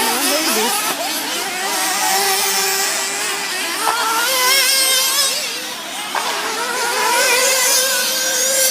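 Several radio-controlled off-road racing buggies running round the track together, their motors whining and changing pitch as they accelerate and brake.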